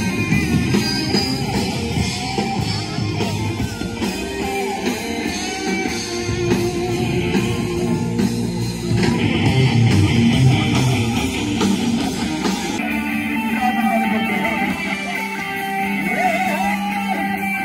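Live rock band playing: electric guitars and drums, with singing over them.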